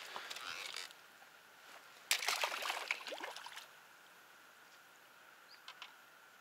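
Water splashing in two bursts, a short one at the start and a louder, longer one about two seconds in.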